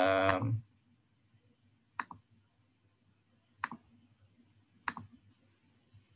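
Three sharp clicks about a second and a half apart, each followed closely by a softer second click, from a computer mouse being clicked.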